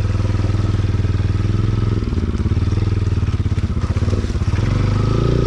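Motorcycle engine running at low revs as the bike creeps over a rough dirt road. About two seconds in, the engine note turns uneven and pulsing, then evens out again near the end.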